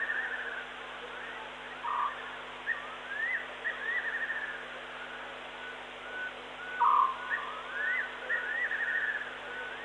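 Night-time bush calls: repeated rising calls and quick trills, with two short, louder calls about two and seven seconds in, over a steady low hum and hiss.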